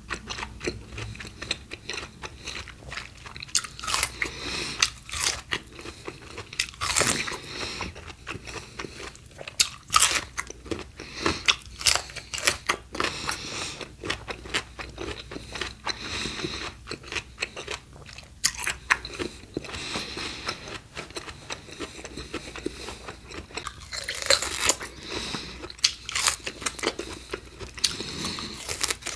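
Close-miked crunchy biting and chewing of raw fruit and vegetables: a steady run of crisp crunches and crackles, with some louder bites standing out.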